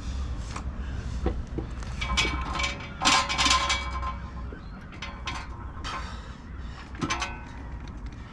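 Irregular metallic clinks and knocks, some ringing briefly, as a gearbox is wrestled onto the back of an engine and lined up.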